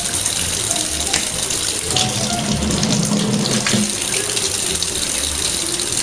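Faucet running a thin, steady stream of water into a sink, with music playing underneath.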